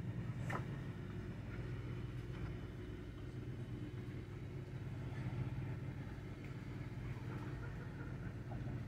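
Steady low hum, with one sharp snip of kitchen shears about half a second in.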